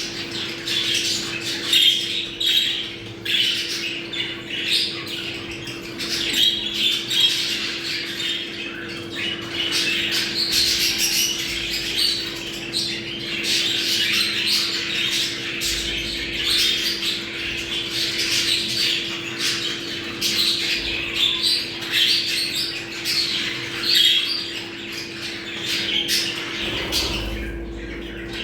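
A flock of budgerigars chattering and warbling continuously, many chirps and squawks overlapping, the breeding chatter of budgies in mating condition. A steady low hum runs underneath.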